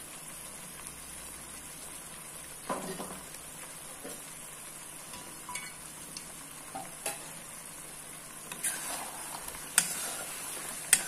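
Chicken curry simmering in a pan, a steady faint sizzle with scattered small pops. From about eight and a half seconds in, a spatula stirs through it, rustling and tapping sharply against the pan twice.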